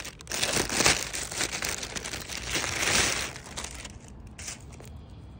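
Thin plastic packaging crinkling and rustling as it is pulled open and off a mini handbag, loudest about three seconds in and dying away about four seconds in.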